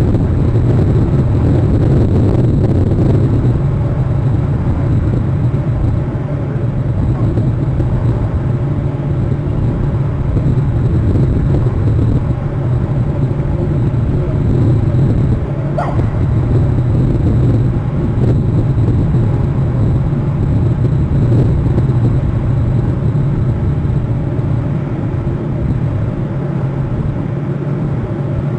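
Steady low rumbling outdoor noise picked up by a nest camera's microphone, with a faint constant high-pitched electrical whine. A brief faint rising sound comes about halfway through.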